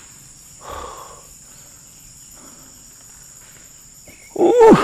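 Steady high-pitched drone of a forest insect chorus. There is a faint brief rustle about a second in, and near the end a loud, short cry that rises and then falls in pitch.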